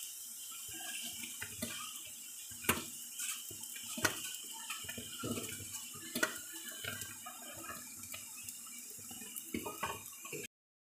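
Milk tea bubbling as it boils up in a metal pot, with a ladle stirring it and a few sharp clinks of metal on the pot. The sound cuts off abruptly near the end.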